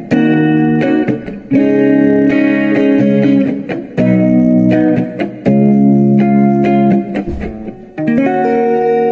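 Electric guitar playing strummed chords, each held for a second or two and then stopped, with short breaks between them; a last chord struck near the end is left ringing.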